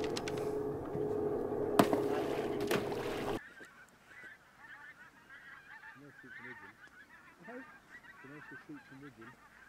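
A steady hum with hiss and one sharp click about two seconds in cuts off after about three and a half seconds. A flock of geese then honks faintly, with many short overlapping calls.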